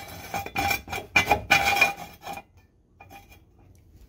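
Steel ratchet-style jack stand being adjusted: about a dozen quick metallic clicks and clanks with a short ring as the toothed post is raised through the pawl and set against the frame. The clicks stop about two and a half seconds in.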